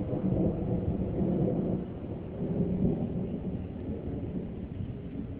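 Low rolling rumble of thunder from a nearby thunderstorm, swelling about half a second in and again around three seconds in.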